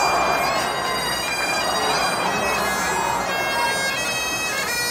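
Football stadium crowd noise from the stands: a loud, steady din of many voices, a little louder in the first second.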